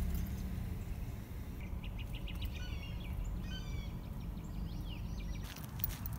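A small songbird chirping in quick runs of short, falling high notes over a steady low rumble.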